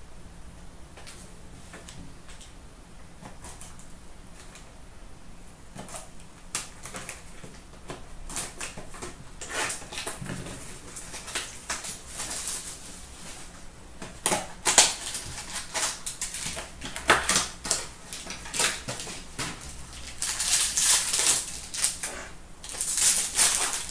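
Trading card packs being torn open and the cards handled: crisp crinkling of pack wrappers mixed with quick clicks and flicks of card stock. It starts faint and grows busier and louder in the second half.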